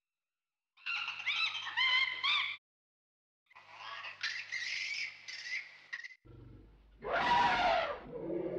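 Animal calls added as sound effects: two bursts of rapid chattering calls whose pitch bends up and down, each cut off abruptly with dead silence between. Just after six seconds in, a low rumble starts, and near the end a loud rushing sound rises over it.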